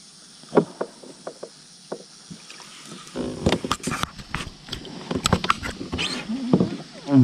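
Water splashing and sloshing against the side of a plastic kayak as a small fish is lowered by hand into the lake and released, after a few sharp knocks in the first two seconds.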